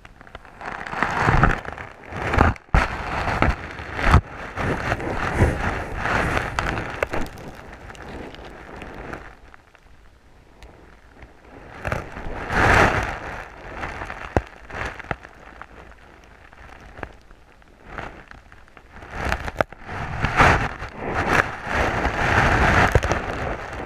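Water churning over a gravel bed, heard through an underwater camera housing: muffled rushing and crackling that comes in several loud surges with quieter stretches between.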